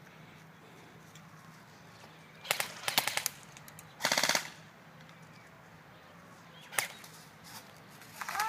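Airsoft guns firing: a few quick shots about two and a half seconds in, then a short, rapid full-auto burst about a second later, and a lone shot near the end.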